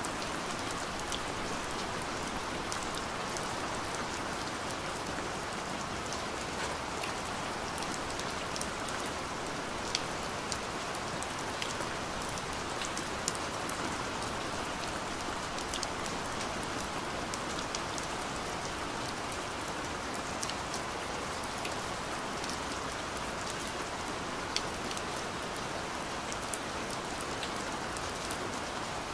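Steady rain, with individual drops ticking sharply here and there.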